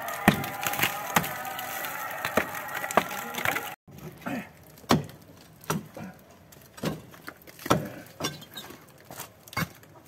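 Hammer blows against a concrete block wall, chipping out block and mortar to open a hole, with a steady droning tone under the first few seconds. After a sudden cut about four seconds in, the knocks come quieter and further apart.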